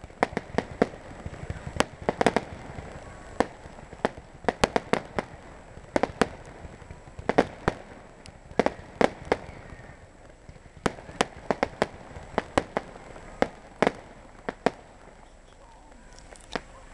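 Aerial fireworks going off: a fast, irregular string of sharp bangs and cracks from bursting shells, which stops about three-quarters of the way through, followed by one last bang near the end.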